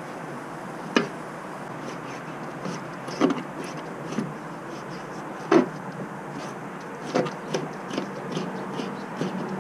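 Fillet knife chopping raw fish on a cutting board, mincing it fine: a few separate sharp knocks of the blade on the board, then from about seven seconds in a steady chopping of about two or three strokes a second.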